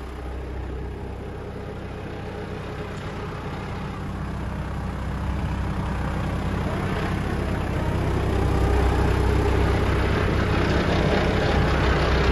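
Mitsubishi GX510 tractor's diesel engine idling, a steady low running sound that grows gradually louder and is strongest over the last few seconds.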